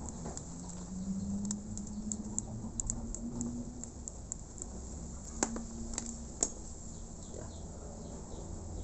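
Scissors snipping a wire-reinforced gasket sheet: a run of small clicks, with three sharper snaps a little past the middle.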